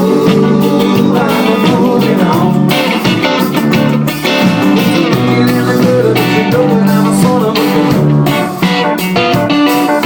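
Live band music with guitar prominent over a steady beat.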